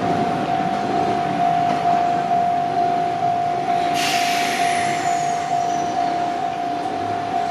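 Level-crossing alarm ringing in a steady repeating tone while an Izuhakone Railway Sunzu Line electric train runs over the crossing, its wheels and running gear making a continuous rumble. About four seconds in, a sudden high hiss with a faint squeal joins and fades away.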